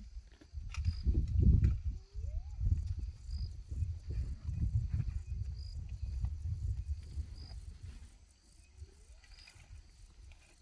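Elephant feeding on tree branches: low crunching and rustling with a few sharp cracks about a second in, fading out after about eight seconds. Crickets chirp steadily throughout, and a bird gives a short rising call every few seconds.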